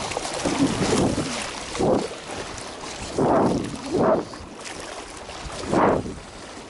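Wind buffeting the microphone on open water, surging in several gusts.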